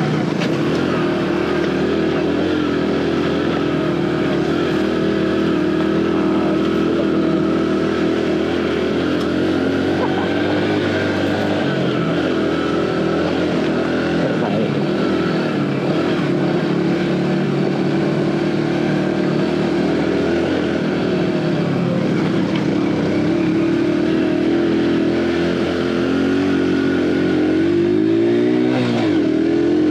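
Aveta Ranger Cub Cross 115's 115cc single-cylinder engine running under steady throttle while riding, its pitch drifting a little up and down. Near the end the revs dip sharply and climb back.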